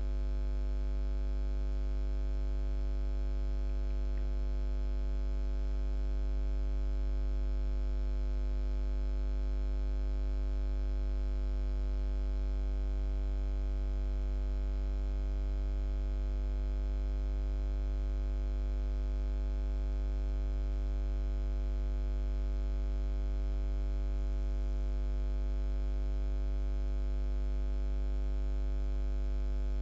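Steady low electrical mains hum with a stack of higher buzzing overtones, unchanging throughout.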